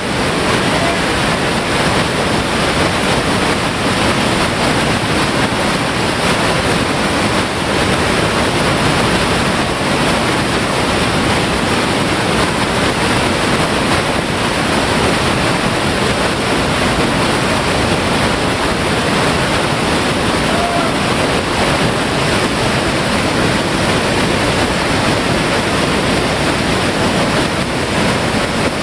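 Steady rushing of whitewater pouring down a steep, boulder-choked creek rapid.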